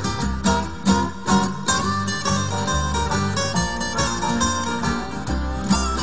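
Background music: quickly picked acoustic guitar over a steady bass line, in a country or bluegrass style.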